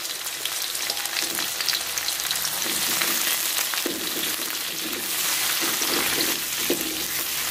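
Sliced garlic, shallots, chillies, galangal and ginger sizzling and crackling in hot oil in an aluminium wok, stirred with a spatula that knocks against the pan now and then.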